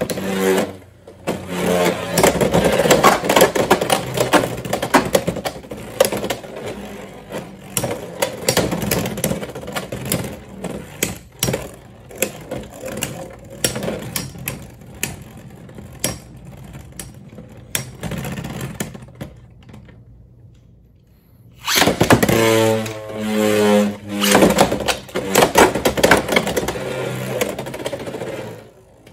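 Two Beyblade X plastic-and-metal spinning tops whirring and clattering against each other and the plastic stadium, with many sharp irregular clicks as they collide. There is a short gap about two-thirds through, then a whirring tone and the clatter start again.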